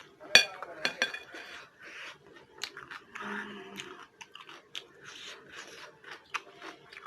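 Close-up crunchy chewing of chatpate, a spicy puffed-rice snack. A spoon clinks sharply against the dish twice in the first second, with small crackles of chewing throughout.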